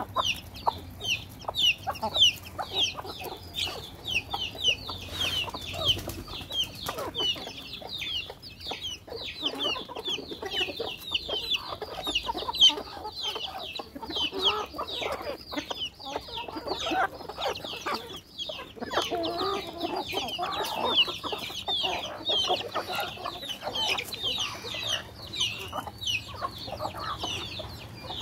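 A flock of chickens calling continuously as they feed. A steady stream of quick, high, falling chirps runs over lower clucking.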